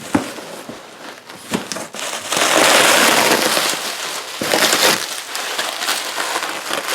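Packaging being pulled open and handled: a couple of sharp clicks, then loud crinkling and rustling about two seconds in, with a further burst of rustling near the end.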